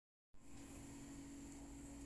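Near silence: faint room tone, a steady low hum with hiss, starting after a brief moment of dead silence.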